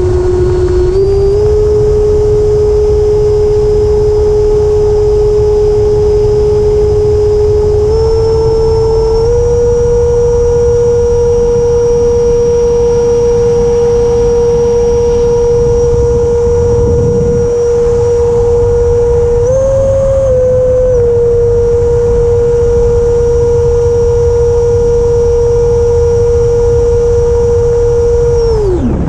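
Electric ducted fan of an FMS Futura 80 mm RC jet running under power: a steady whine with overtones, over a low rumble. It steps up in pitch a few times in the first ten seconds as the throttle is advanced and rises briefly for about a second later on. At the very end the pitch falls away sharply as the throttle is cut.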